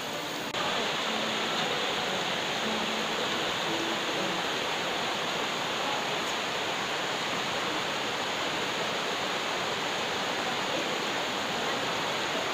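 Steady rushing noise that jumps up in level about half a second in, then holds even.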